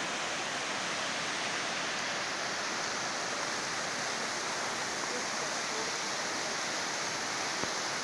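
Waterfall pouring down a rock face and over boulders: a steady, even rush of falling water.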